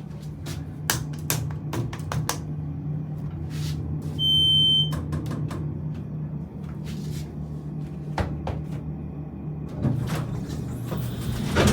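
Hydraulic elevator cab with a steady low hum and scattered clicks and rattles. About four seconds in, a single loud, high electronic beep sounds briefly: a floor-passing chime with a smoke-detector-like tone.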